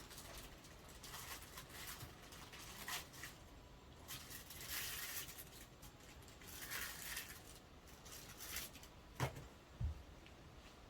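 Faint handling noises: scattered rustling and light clicks, with two short, low knocks near the end.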